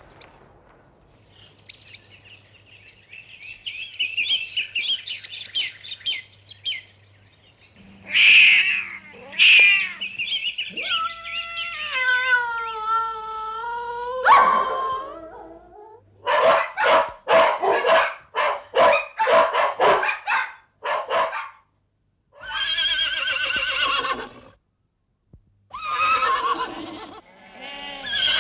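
A string of recorded animal sound effects played one after another: faint high chirping at first, then loud calls that slide down in pitch, then a quick run of short loud calls, and more animal calls after a brief gap.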